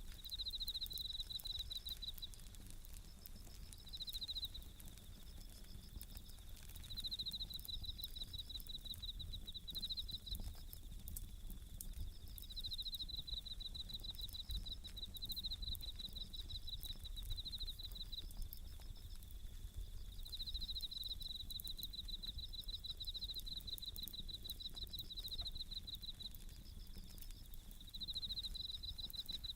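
Japanese bell crickets (suzumushi) singing, short high ringing trills repeated every second or two, with a softer second cricket just above them, over the faint snaps and crackles of a wood fire.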